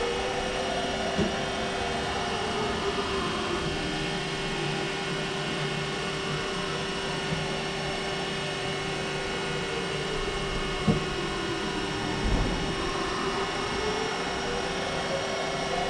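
Haas VF1 vertical machining centre running: a steady electrical hum with a motor whine that glides down in pitch early on and back up near the end, and a few sharp clicks.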